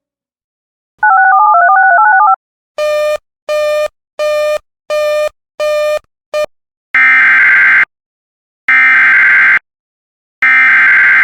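Electronic alert tones: a short warbling jingle of quickly stepping notes, then six beeps about 0.7 s apart with the last one cut short. These are followed by three buzzy bursts of about a second each, the SAME digital header of an Emergency Alert System message, marking the start of the next warning.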